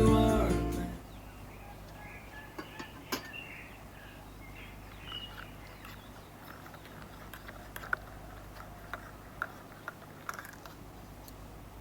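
Background music fading out within the first second, then faint outdoor quiet with scattered small clicks and a few faint bird chirps.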